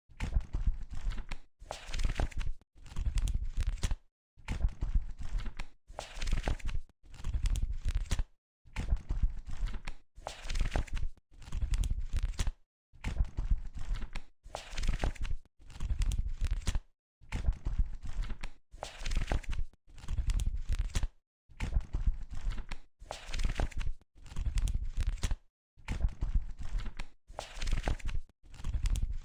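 Book pages being flipped one after another, each turn a papery rustle about a second long with a short silent gap before the next.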